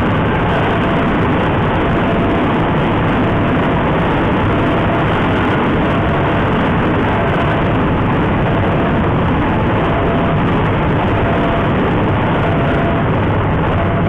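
KRL commuter electric multiple unit passing close by at a level crossing: a loud, steady rumble and clatter of its wheels on the rails. Faint short tones recur over it, most likely the crossing's warning alarm.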